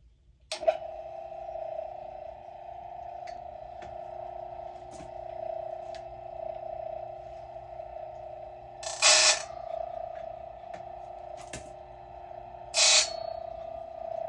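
A Silvey raker grinder's motor switches on about half a second in and runs with a steady hum, with scattered clicks as the chain is positioned. Twice, at about 9 and 13 seconds, the grinding stone takes down a chainsaw chain's raker with a brief, loud rasp.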